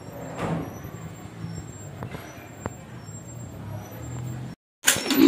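A motor vehicle's engine running steadily with a low hum, swelling briefly about half a second in, with a few faint high chirps above it. Near the end it cuts off abruptly, and after a moment's silence a loud voice begins.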